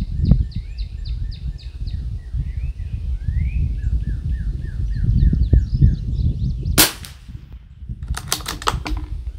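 A single shot from an Anschutz 1761 bolt-action .22 LR rimfire rifle firing SK Standard Plus ammunition, a sharp crack about seven seconds in. About a second and a half later comes a quick run of several sharp clicks as the bolt is worked. Birds chirp in the background throughout.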